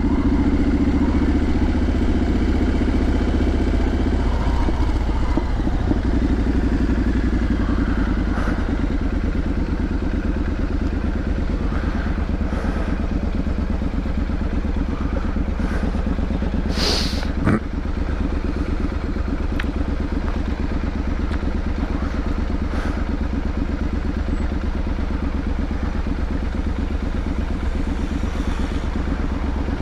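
Triumph Street Scrambler 900's parallel-twin engine running steadily at low revs while ridden, a little busier for the first few seconds. A single sharp click comes about halfway through.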